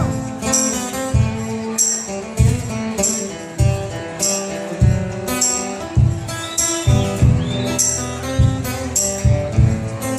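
Instrumental passage of a pop-rock song: a steady kick-drum and tambourine beat under guitar chords.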